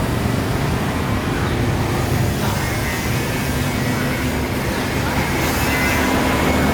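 Steady low rumble of motor traffic running close by.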